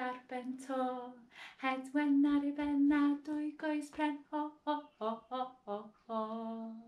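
A woman singing unaccompanied in a string of short, steady notes, like a simple children's action song or chant.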